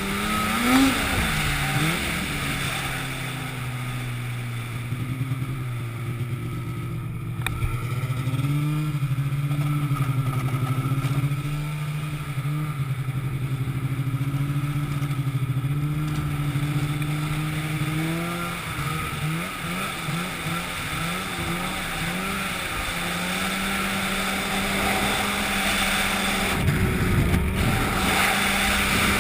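An engine running steadily, its pitch stepping up and down several times as the speed changes.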